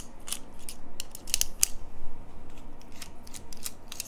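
Small precision screwdriver turning a screw in the metal body of an Ingersoll CS lever lock: a run of small, sharp metallic clicks at an uneven pace.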